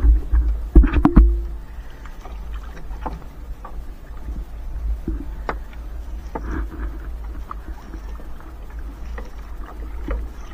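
Water splashing and sloshing against a small boat's hull close to the microphone, over a steady low rumble. Scattered knocks and thumps run through it, the loudest a cluster about a second in.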